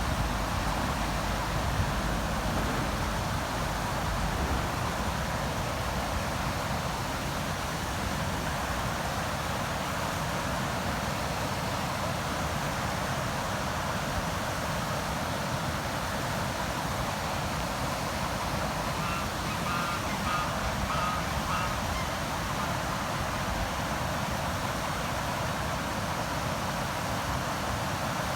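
River water rushing steadily. A short run of four or five brief bird calls about two-thirds of the way through.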